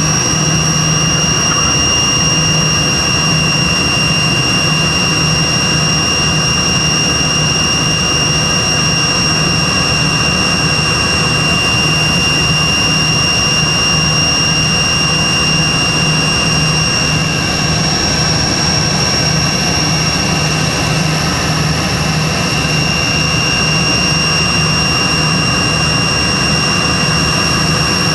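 Cabin noise of a Tupolev Tu-134B-3 in cruise flight: the steady rush of air and the drone of its two rear-mounted Soloviev D-30 turbofans, with two steady high-pitched whines above a low hum.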